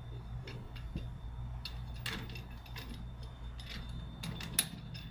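Small metal clicks and taps from a steel trampoline enclosure pole being fitted against the trampoline's metal frame leg, with one sharper knock about four and a half seconds in, over a steady low hum.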